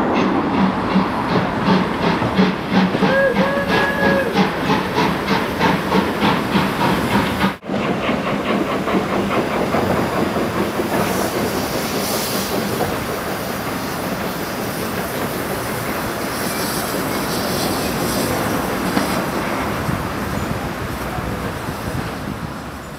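Steam train pulling away with a regular beat of about three strokes a second, and a brief high tone about three seconds in. After a sudden break, a steady hiss of steam from a standing steam tank engine, with louder bursts of hiss twice.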